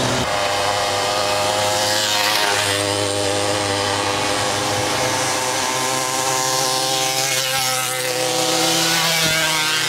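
Small moped engines running hard at racing revs, a steady buzzing engine note with a couple of brief swells.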